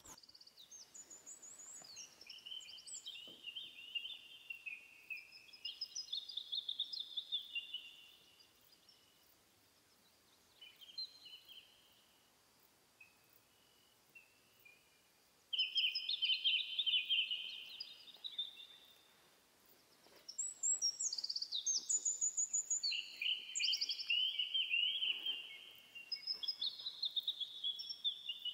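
A songbird singing varied, high-pitched warbled phrases of a few seconds each, with a longer pause about a third of the way through before the song resumes.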